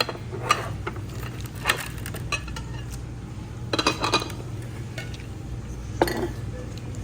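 Cutlery clinking against dishes: several short, sharp clinks, the loudest near the end, over a steady low hum.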